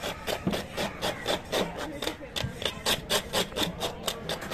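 A knife scraping rapidly over the skin and scales of a large wavy-lined grouper, in quick even rasping strokes about three or four a second.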